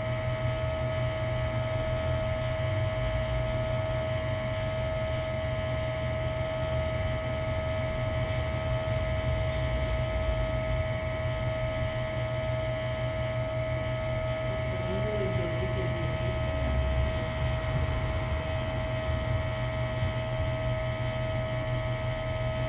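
A steady electrical-sounding hum with a constant mid-pitched tone and a low drone beneath it, unchanging throughout. About fifteen seconds in, a faint wavering voice-like sound rises briefly out of the hum.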